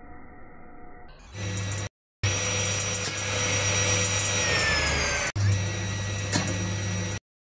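Circular saw blade spinning at speed: a steady motor hum with a high whine, which sinks slightly in pitch in one stretch. It cuts out abruptly a few times, with a sharp knock about six seconds in. A quieter, muffled tone comes before the saw sound starts, a little over a second in.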